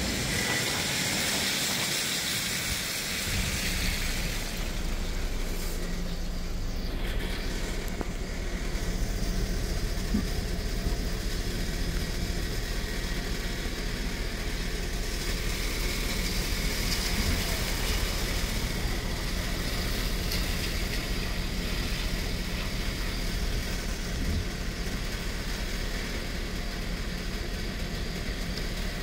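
Heavy rain on a city street: a steady hiss of rain and tyres on wet pavement, with a vehicle engine idling as a low steady hum from about three seconds in.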